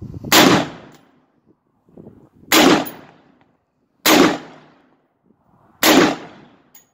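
AR-15 rifle in .223 firing four single shots, about one every two seconds, each followed by a brief echo.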